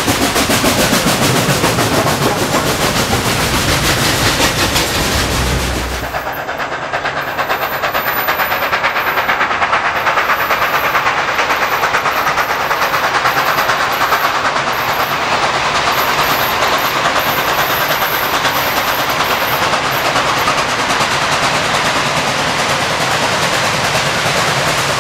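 Nickel Plate Road 765, a 2-8-4 Berkshire steam locomotive, working hard with rapid, even exhaust chuffs and the train rolling over the rails. About six seconds in the sound changes abruptly to the locomotive approaching, still chuffing steadily.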